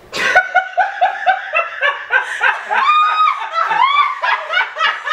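A person laughing hard: a sudden burst, then rapid breathy ha-ha pulses, about five a second, broken by a couple of high squealing rises.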